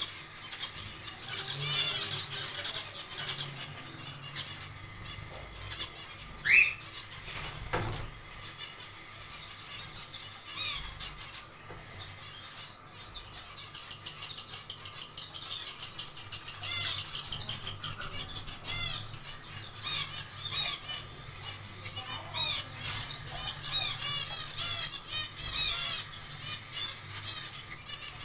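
Zebra finches chirping and calling in quick runs of short, high notes, with one louder rising squeak about six seconds in.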